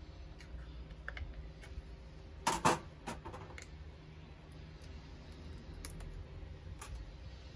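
Scattered small clicks and knocks of plastic and metal parts being handled at a car's brake fluid reservoir as the brake bleeder's adapter is fitted. About two and a half seconds in there is a louder double clack.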